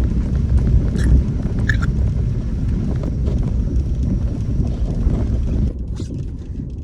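Steady low rumble of wind buffeting the microphone on a moving vehicle, with a few light knocks; the rumble eases a little near the end.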